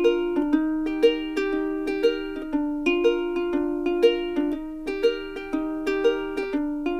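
Background music: a light plucked-string tune with notes struck at an even pulse, about two a second.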